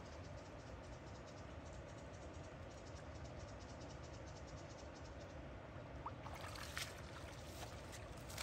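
Faint steady outdoor background noise, with a few light clicks and a brief faint chirp about six seconds in.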